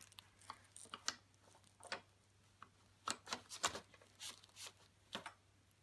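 Faint handling noises: cloth costume rustling, with scattered short clicks and scrapes as the animatronic reaper's foam arm post is hooked by its metal wire hook into the sleeve.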